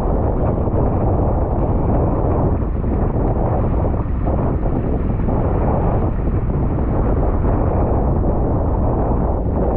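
Strong wind buffeting the microphone: a steady, loud, low rumble of wind noise.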